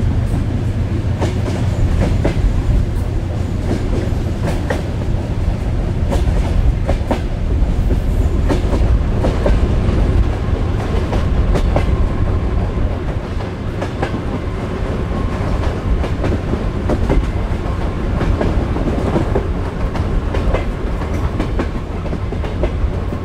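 Passenger train carriages running along the track, heard from an open carriage window: a steady low rumble with the clickety-clack of wheels over rail joints. A faint steady whine comes in partway through.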